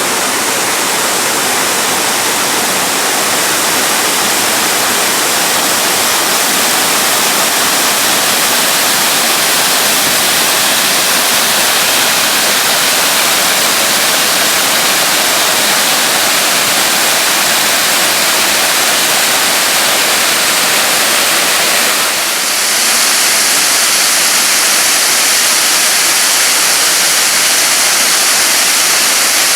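Waterfall pouring steadily: a dense, even rush of falling water with no pauses. About two thirds of the way through, the hiss turns brighter and slightly louder.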